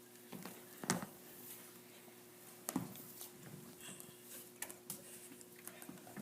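Faint scattered clicks, knocks and rustles over a steady low hum, with a sharper knock about a second in and another near three seconds.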